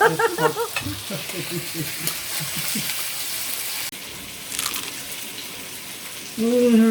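Food sizzling as it fries in a hot pan, a steady hiss.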